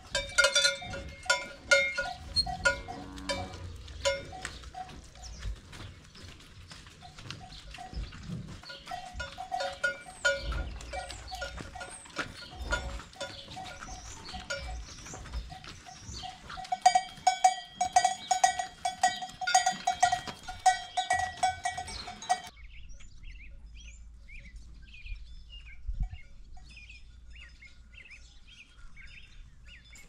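Cowbells clanking irregularly as a herd of dairy cows walks out to pasture, with many sharp metallic clangs that come thickest a few seconds before the change. About three-quarters through, the sound cuts to a quieter stretch with faint short chirps over a low rumble.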